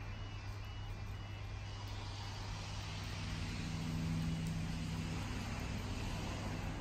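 Diesel locomotives of an approaching train heard from a distance: a low, steady engine drone whose note grows stronger a few seconds in.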